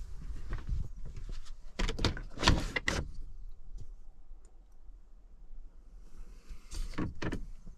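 A cluster of knocks and rattles about two seconds in and a shorter one near the end, over a faint low hum: something mechanical being moved or handled.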